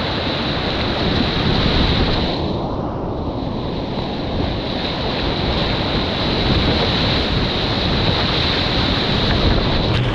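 Whitewater rapids rushing, a loud, steady wash of moving water, with wind buffeting the GoPro's microphone.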